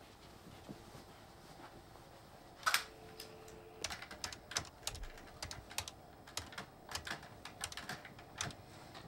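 Desk telephone being dialed: a clunk as the handset is lifted, about a second of dial tone, then a string of irregular clicks as the number is dialed.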